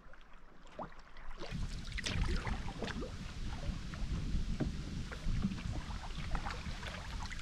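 Small waves slapping and splashing against an open canoe's hull as it heads into a headwind, with wind buffeting the microphone. The sound jumps louder about a second and a half in.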